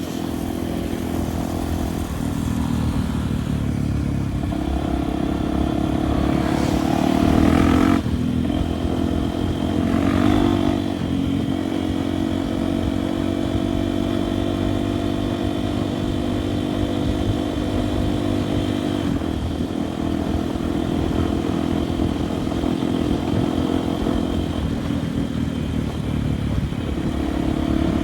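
Honda Tornado single-cylinder four-stroke motorcycle engine running while riding a dirt trail. The revs climb and drop a couple of times in the first ten seconds, then hold fairly steady.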